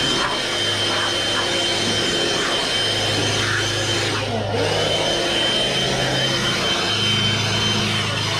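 Cordless handheld electric blower running steadily with a high whine, blowing rinse water off a car's paint and chrome. The whine dips briefly about halfway through and then picks up again.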